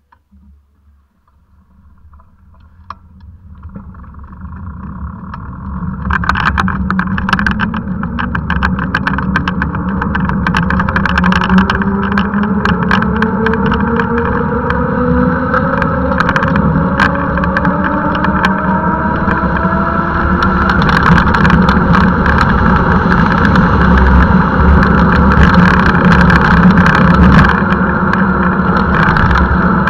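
Wind and road noise from a handcycle riding along a lane, building from near quiet over the first six seconds into a steady loud rumble as it gathers speed. Scattered clicks and rattles run through it, and a faint whine rises slowly in pitch.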